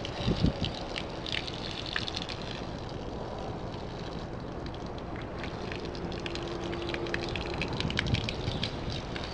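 Water from a garden hose spraying onto a car's body panel: a steady spray with a scattered crackle of splashing drops. A few low thumps come just after the start.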